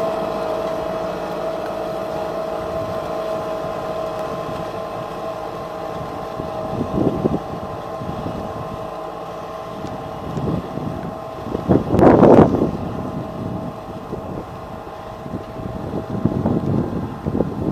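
Tractor engine running steadily under load while pulling a subsoiler, with a held whine that slowly fades. Wind buffets the microphone in gusts, loudest about twelve seconds in.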